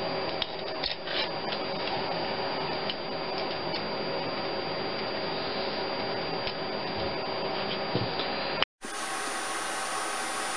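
Steady workshop hum holding several even tones, with a few light clicks and taps of metal parts being handled on an engine. The hum drops out for a moment near the end and comes back.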